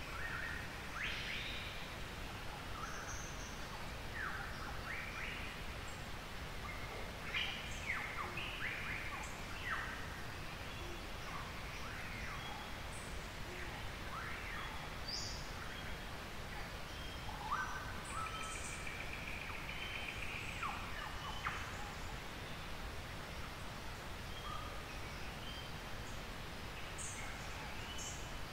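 Several forest birds calling in an early-morning chorus: a scatter of short chirps and quick upward-sweeping calls, a few high thin notes, and one longer held note about two-thirds of the way through, over steady low background noise.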